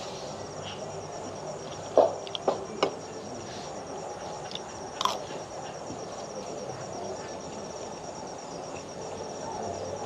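Insects trilling steadily in a fast, even pulse, with a few short sharp clinks about two seconds in and one more about five seconds in.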